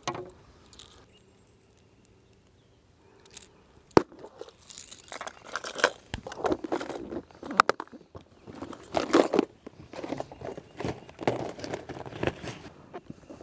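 Crinkling and rustling of plastic bait packaging as soft-plastic floating worms are dug out, in short irregular bursts, with a sharp click about four seconds in and another a few seconds later.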